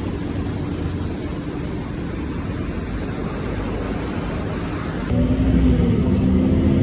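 Steady road-traffic rumble, then about five seconds in a louder, steady low hum from inside a moving bus.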